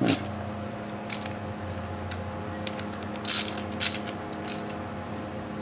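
Socket ratchet working the connecting-rod cap bolts inside a Briggs & Stratton single-cylinder engine's crankcase: a handful of separate sharp metallic clicks, the strongest two a little past the middle, over a steady hum.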